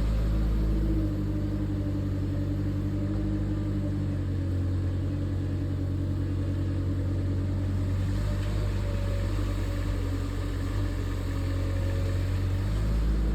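A 2-tonne LiuGong mini excavator's diesel engine running steadily. Its note shifts about a second in and again near the end.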